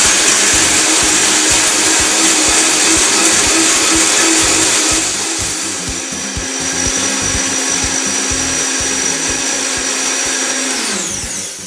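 Vitamix TNC 5200 blender running at its highest speed, blending a thick mix of rice milk, tiger nut flour and dried figs. The motor's steady whine eases slightly about halfway through, and the motor spins down with falling pitch near the end as it is switched off.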